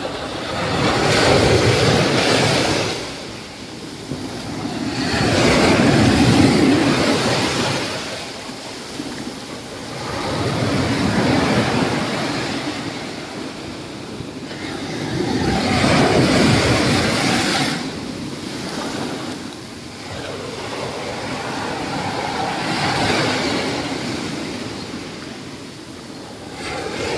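Small waves breaking and washing up a sandy beach around rocks. The surf swells and ebbs about every five seconds, five surges in all.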